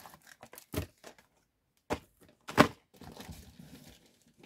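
Packaging being handled while rummaging in an order box: crinkling and rustling with several short knocks, the loudest about two and a half seconds in.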